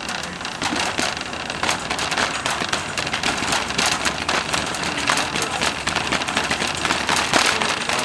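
Wire shopping cart rattling and clattering continuously as it is pushed along, its wheels rolling over a hard store floor.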